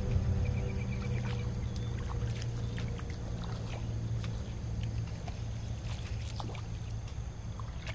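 Small splashes and drips of water as a hand works an orange fishing net in shallow water, over a steady low hum. A brief high chirping run comes about half a second in.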